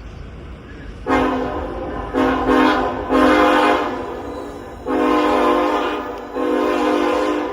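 Locomotive's Nathan Airchime K5LLA five-chime air horn sounding a series of blasts starting about a second in: a couple of short ones, then several longer held blasts, each a steady chord of tones. A low rumble from the train runs underneath.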